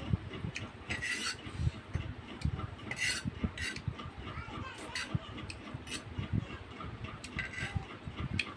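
Fork and spoon scraping and clinking against noodle bowls while eating, in short irregular strokes, over dull low knocks.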